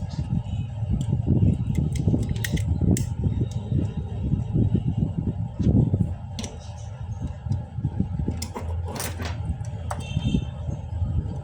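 Scattered light metallic clicks and taps, as of small parts and tools being handled, over a steady low rumble.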